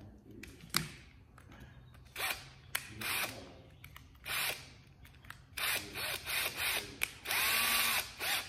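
Cordless drill run in several short trigger bursts, then one longer run of about a second near the end, its motor whine rising and falling, as a number two Phillips bit is fitted in the chuck.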